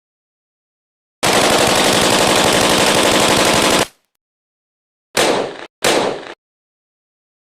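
AK-47 automatic-fire sound effect: one long burst of about two and a half seconds starting just over a second in, then two short bursts in quick succession near the end.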